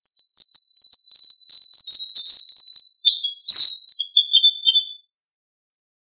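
A small songbird singing one long, high trill of about five seconds, breaking into lower notes near the end, with a sharp click about three and a half seconds in.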